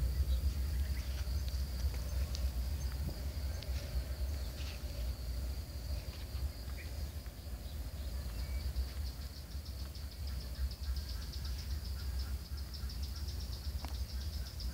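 Insects trilling in one steady high note that turns into a rapid pulse in the second half, over a constant low rumble.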